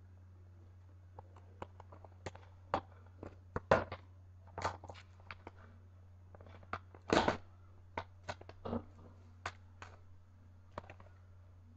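Hands handling and opening a cardboard fingerboard box: irregular clicks, crinkles and knocks, with louder rustles about four and seven seconds in, over a steady low hum.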